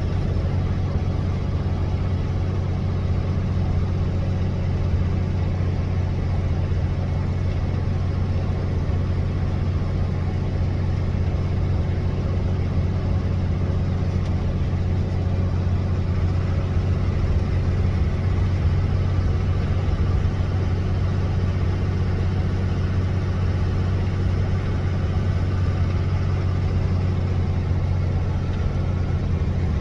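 2007 Ford F650's 5.9 Cummins turbo-diesel inline-six running steadily while the truck is driven, its turbo's silencer ring removed.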